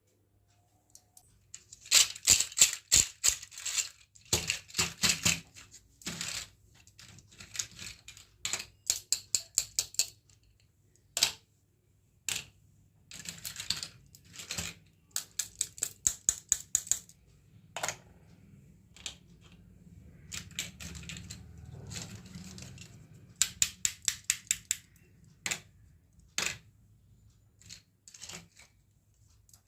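Small hard plastic toy kitchen pieces clicking and clattering as they are handled and set down, in quick runs of sharp clicks with short pauses between.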